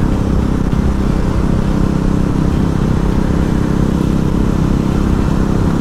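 KTM Duke motorcycle engine running steadily at cruising speed, heard from the rider's seat, with wind and road noise mixed in.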